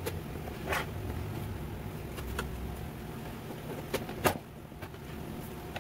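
Scattered clicks and knocks from handling a SodaStream Fizzi soda maker while it is being put together, over a low steady hum. One sharp knock a little over four seconds in is the loudest.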